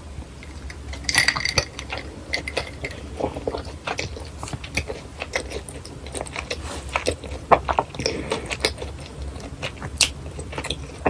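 Close-miked biting and chewing of crispy fried churros, with irregular crunchy crackles.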